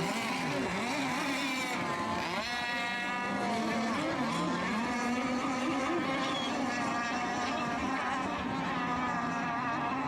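Several radio-controlled racing boats running on the course, their motors giving a steady high-pitched whine made of overlapping tones that drift up and down as the boats pass. One rises sharply in pitch about two seconds in.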